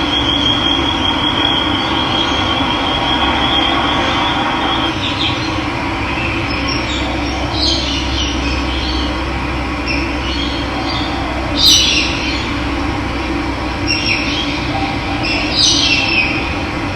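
Running water rushing steadily, with birds calling over it: a high trill in the first two seconds, then scattered short chirps, the loudest about twelve seconds in.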